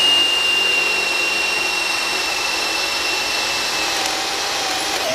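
JCB brushless cordless drill driver running at speed, boring a large twist drill bit into a pine 2x4, with a steady high motor whine. The pitch holds steady with no sign of bogging down under the load.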